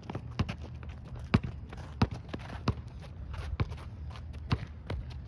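A basketball dribbled on a hard court: a sharp bounce about every second, seven in all.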